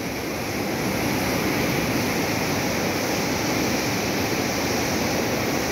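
Steady rush of river water pouring through open barrage gates and churning in the channel below.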